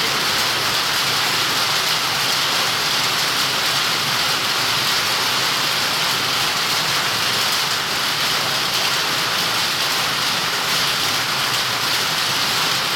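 Heavy rain falling steadily, a constant hiss of rain on surfaces.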